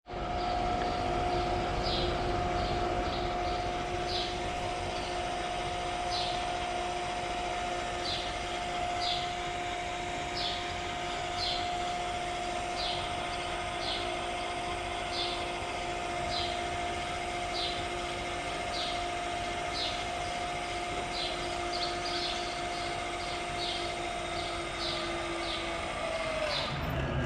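A steady machine hum that sinks in pitch and dies away near the end. Small birds chirp over it again and again, short high calls every second or so.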